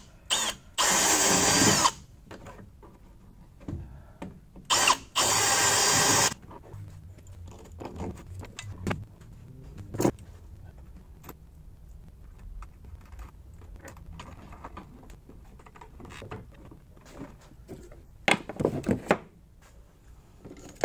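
Cordless drill boring through a pickup truck's metal rear bumper: a couple of short blips, then two steady runs of a second or so each. After that come scattered clicks and knocks of small parts being handled as an LED light is bolted on, with a sharp click about ten seconds in and a quick cluster of clicks near the end.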